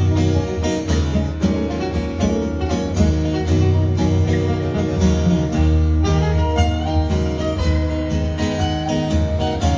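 Live acoustic and hollow-body guitars playing an instrumental passage together, amplified through a PA.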